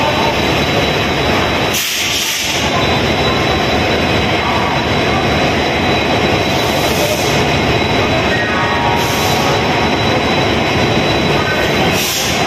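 WDP4D diesel locomotive's engine running steadily close by, a loud even rumble, with a few brief hisses over it.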